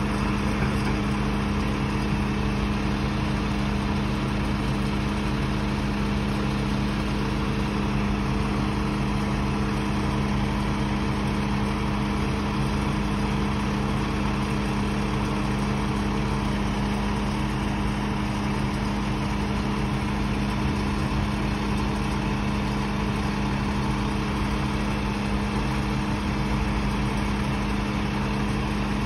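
A combination sewer-cleaning vacuum truck standing with its machinery running: a constant, unchanging hum of several low pitches.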